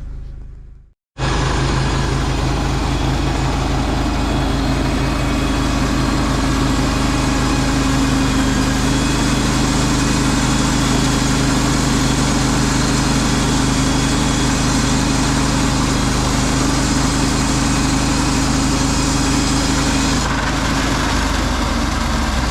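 An engine running steadily at a constant speed, starting abruptly after a brief silence about a second in; its tone shifts slightly near the end.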